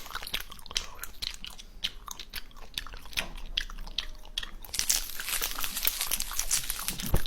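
Close-miked crunchy clicking and crackling, ASMR-style, with a denser stretch of rustly crackle about five seconds in.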